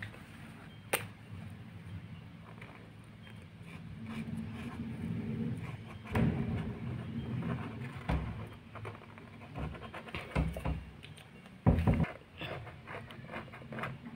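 Handling noise while colouring with felt-tip sketch pens on paper on a clipboard: a sharp click about a second in, then scattered taps and knocks, the loudest near the end, over a low background hum.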